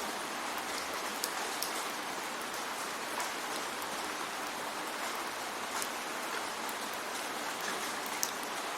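Steady rain falling, an even hiss with the occasional distinct drop striking close by.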